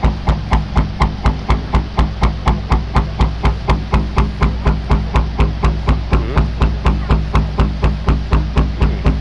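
Background music with a steady, driving beat of about four thumps a second over a held bass line.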